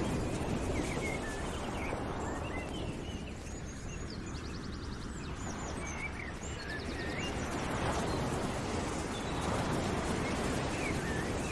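Nature ambience as a background bed: several birds chirping and trilling over a steady rushing noise that swells and eases.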